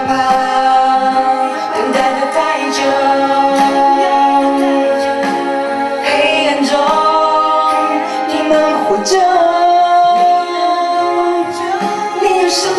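A solo voice singing a Chinese-language song into a microphone, over instrumental accompaniment.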